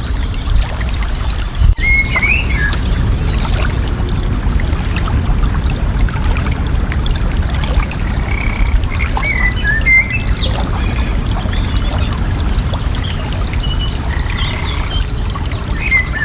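Flowing water rushing steadily and deep in tone, with short chirping bird calls breaking in a few times: about two seconds in, around nine to ten seconds, and again near the end.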